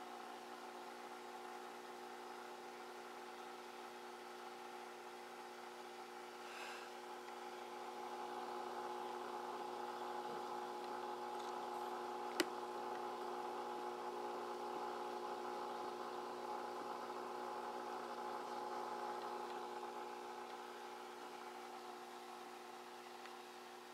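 Steady mechanical hum with several held tones, a little louder through the middle, and a single sharp click about twelve seconds in.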